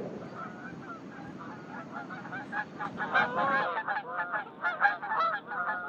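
A flock of geese honking in flight, many short overlapping calls that grow louder and more frequent about halfway through.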